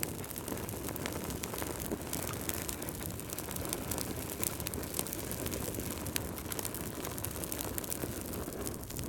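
Wood fire burning in a fireplace: logs crackling with frequent small pops over a steady low rush of flame.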